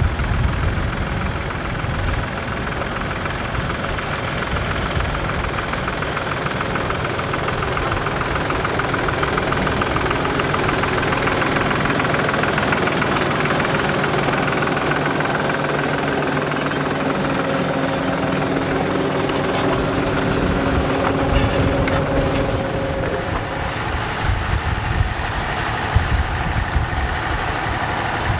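Tractor engine running steadily, with a few sharp knocks near the end.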